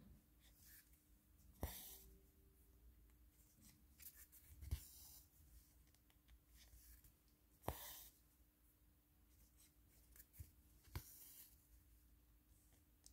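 Near silence broken by faint, short rustling swishes and light scratches of handwork on a craft canvas, about one every three seconds, with a few tiny clicks.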